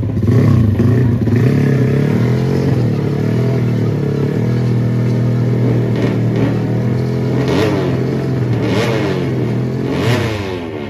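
Drag-racing motorcycle engines running and being revved, with several quick blips where the pitch sweeps up and falls back in the second half.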